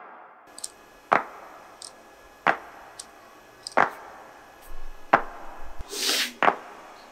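Five sharp plastic clicks, evenly spaced about a second and a third apart, with fainter ticks between them: the gravity-tilted stopper pawl of a 3D-printed ratchet hub dropping into place as the hub is turned by hand. A short scraping rustle about six seconds in.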